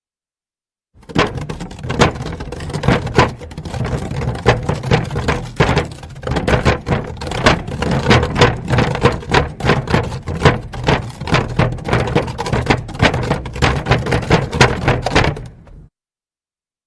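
Wooden barrel moved over a sidewalk: a continuous low rumble and rasping scrape of wood on pavement, broken by many irregular sharp knocks. It starts about a second in and cuts off about a second before the end.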